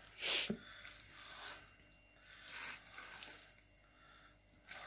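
Minced meat being added by hand to a bowl of mince, with soft wet squishing and a louder brief rustle and thump just after the start.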